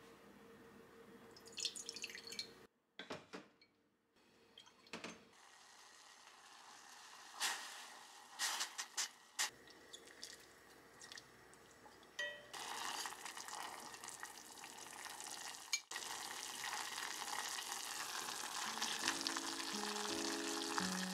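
Scattered clicks and knocks of utensils on a stainless steel pot, then from about halfway a steady hiss of dashi broth simmering as thin pork slices are stirred in it with chopsticks. Soft piano music comes in near the end.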